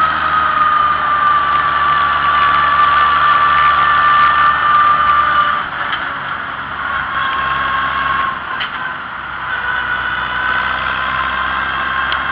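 Old farm tractor running along the road, its engine steady with a high whine. The whine sinks slightly in pitch, drops lower and quieter about six seconds in, then slowly climbs again.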